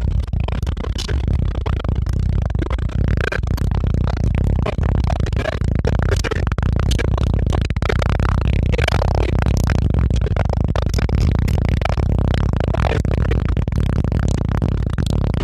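Music with a heavy, steady bass line and a beat.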